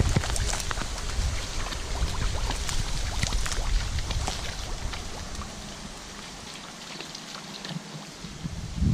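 A dog wading through shallow water, its legs sloshing and splashing with many small irregular splashes; the splashing thins out and gets quieter over the last few seconds.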